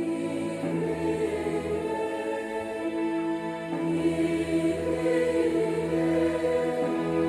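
Church choir singing a hymn in long held chords.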